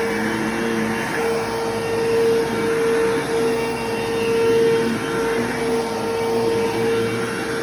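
Bissell Lift-Off bagless upright vacuum cleaner running while vacuuming: a steady motor whine at one pitch over a rushing airflow, with small swells in loudness.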